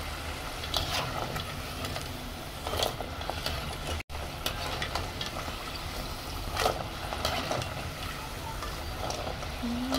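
Cassava balls deep-frying in hot oil with a steady bubbling sizzle as they turn golden-brown. A slotted metal spoon scrapes and knocks against the pot a few times as the balls are stirred and turned.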